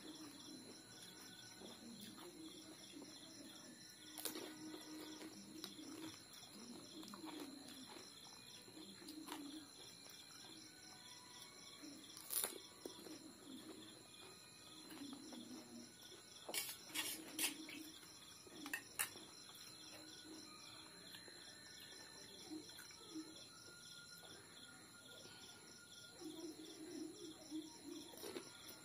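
Faint eating sounds of panipuri: chewing and munching of the crisp hollow puri shells, with a few sharp cracks as shells are broken open, one cluster of several cracks in the middle. A steady high-pitched ringing runs underneath.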